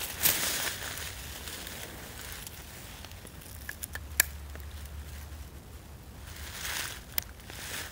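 Dry leaves and clothing rustling as a person shifts while lying prone. A few short, sharp clicks come from handling a .22 rifle, the loudest about halfway through, with another near the end.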